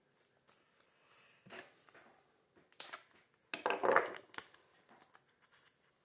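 A small clear plastic bag holding a trading card, crinkling and being ripped open by hand in a few short tears, the loudest nearly four seconds in.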